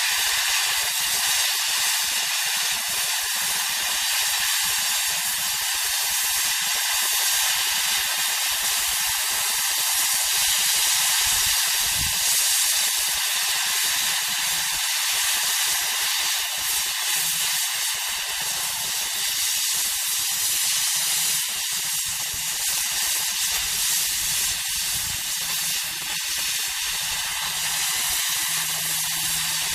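Oxy-fuel cutting torch hissing steadily as it cuts steel plate.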